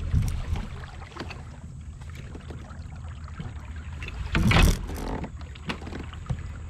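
Wind rumbling on the microphone over knocks and water noise aboard a fishing kayak, with a louder rush of noise about four and a half seconds in.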